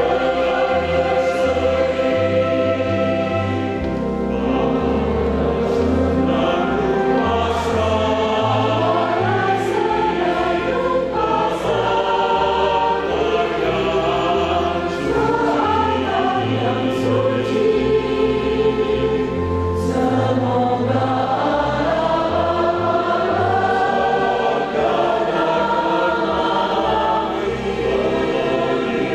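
Mixed choir of women's and men's voices singing together. Beneath them, low bass notes from an accompaniment change about once a second.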